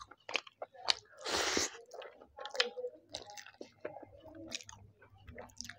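Close-miked wet chewing and mouth smacks of a man eating chicken biryani by hand, with soft squishing as his fingers gather and squeeze the rice. Many short clicks and ticks, and one brief hissing rush about a second and a half in.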